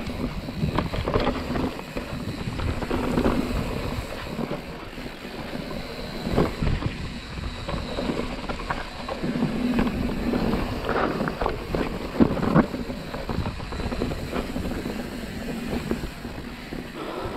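Mountain bike riding fast down a dirt trail: continuous tyre roll on dirt and wind on the microphone, with the bike knocking and rattling over bumps now and then, sharpest about two-thirds of the way through.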